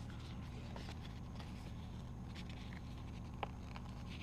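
Faint rustling and small ticks of sticker sheets and paper being handled, with one sharper tick about three and a half seconds in, over a steady low hum.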